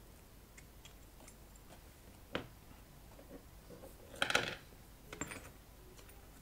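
Small metal parts and hand tools clicking and clattering against a workbench as a wirewound rheostat is taken apart with pliers and a screwdriver. There is a sharp click about two seconds in, a louder clatter just after four seconds and a smaller one a second later.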